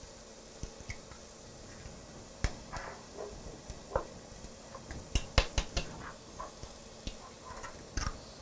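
Eggs being cracked against a mixing bowl and added to the batter: scattered sharp taps and clinks on the bowl, with a quick run of them about five seconds in.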